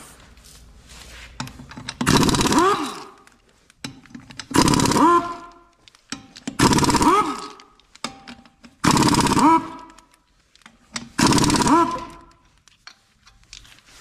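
Impact wrench taking off a car wheel's five lug nuts: five bursts of about a second each, about two seconds apart, each with a whine that rises in pitch as the motor spins up and the nut comes loose.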